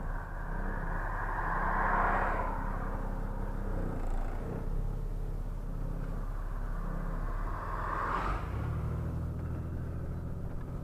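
A vehicle's engine running steadily while driving, its pitch shifting about eight and a half seconds in, with two brief louder whooshes, about two seconds in and near the end.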